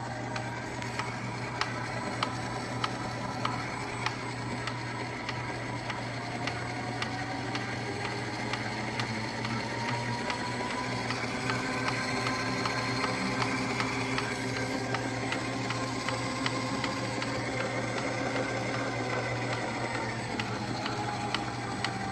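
Ooni Halo Pro spiral mixer running, with a steady motor hum, a regular clicking, and a whine that slowly drifts in pitch. This is an abnormal noise the mixer has developed after only three uses.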